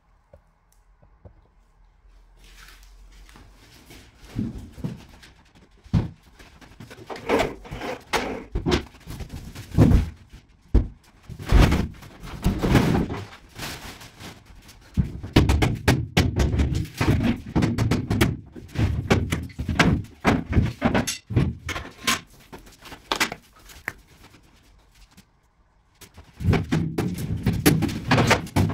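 Irregular thuds, knocks and bangs of furniture being moved, knocked about and dropped while a room is cleared out. The knocks begin about four seconds in, turn into a busier stretch of clattering in the second half, pause briefly, and pick up again near the end.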